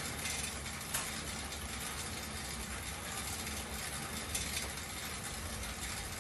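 Schwinn air bike's fan wheel spinning steadily as it is pedaled, a constant rush of moving air, with a couple of faint ticks from the mechanism.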